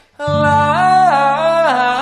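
A voice singing a vocal warm-up scale, stepping quickly up and down through the notes, over a low sustained accompaniment chord that starts about a quarter second in.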